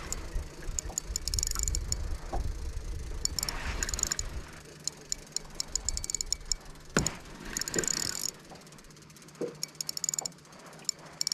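Spinning reel ticking in short bursts of fast clicks, over and over, as a big fish is played on the line. Wind rumbles on the microphone for the first few seconds, and there is one sharp knock about seven seconds in.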